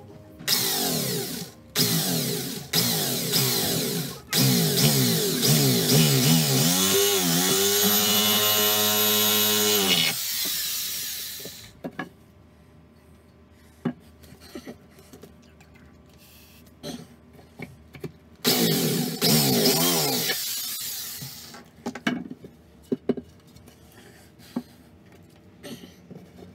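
Corded electric drill with a wood bit boring into a wooden strip, the audio sped up to double speed: the motor whines in a few short trigger bursts, then runs for about six seconds, its pitch wavering under load, before winding down. After a gap of light knocks from handling the wood, it runs again for about three seconds near the end.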